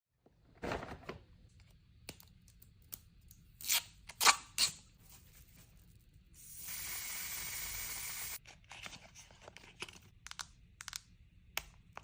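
Product packaging being opened: a few short rustles and crinkles, then a steady tear lasting about two seconds midway, followed by light clicks and taps.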